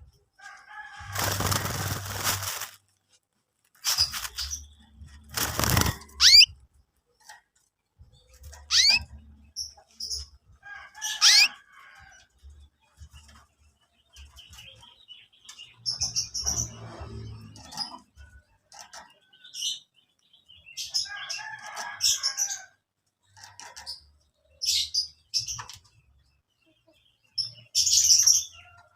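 Young canaries chirping in short, scattered bursts of high notes and quick sweeping whistles, with pauses between them. Two loud rushes of wing flapping come in the first few seconds.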